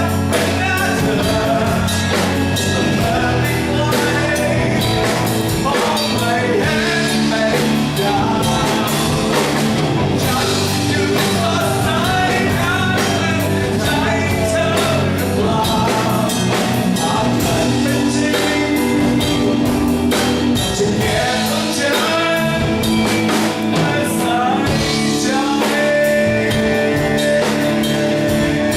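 A live rock band (lead guitar, bass guitar and drum kit) playing a song with a singer's voice over it.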